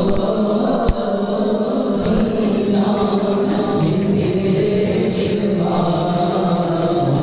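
A large group of men chanting devotional verses together in unison, with long held sung lines. A single sharp knock sounds about a second in.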